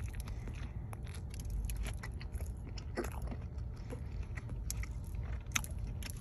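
A person chewing a Chicago-style hot dog in a poppy-seed bun close to the microphone: many small mouth clicks and soft crunches, over a low steady hum.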